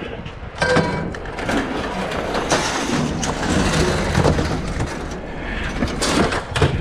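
Scrap being handled: a dense, irregular clatter of knocks and bangs, with a few brief metallic rings.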